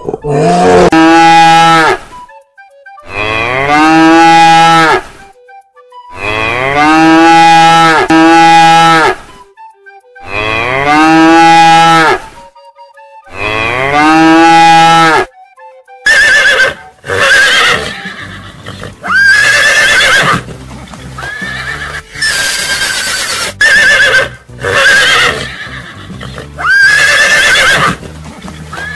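A cow mooing: a series of long, drawn-out moos separated by short silences. About halfway through, it gives way to horses neighing and whinnying, high shrill calls repeating every second or two.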